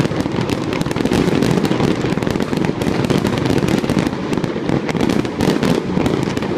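Fireworks display going off continuously: many sharp bangs and pops a second, overlapping into an unbroken barrage.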